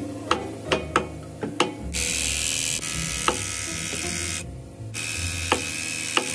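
Ratchet clicking a handful of times on a hub puller's forcing screw, then a power tool running in two spells of about two seconds each with a short break between, as the puller is wound onto a seized SAF hub.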